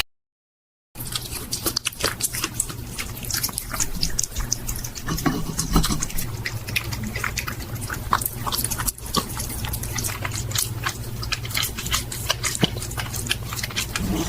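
A hedgehog chewing and smacking on food: a dense run of small wet clicks and crunches over a low steady hum, starting about a second in after a moment of silence.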